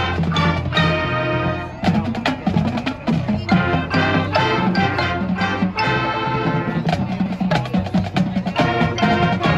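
High school marching band playing, with held horn chords over a busy drumline and many sharp percussion hits.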